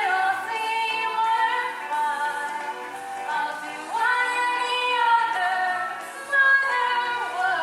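Young girl singing a musical-theatre solo, holding long notes.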